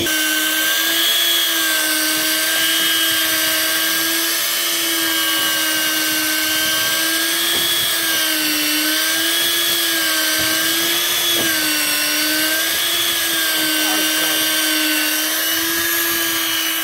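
Electric deep-drop fishing reel's motor whining steadily as it winches line up from the deep, its pitch wobbling slightly as it works.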